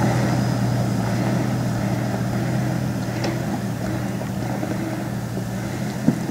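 Toyota LandCruiser 80 Series 4.2-litre turbo-diesel engine running at low speed as the truck crawls away, its steady drone slowly fading. A single short knock near the end.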